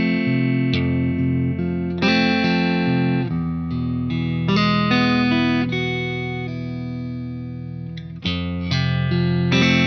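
Electric guitar playing ringing chords, a new chord struck about every second, with one chord left to ring and fade for a couple of seconds past the middle before the playing picks up again.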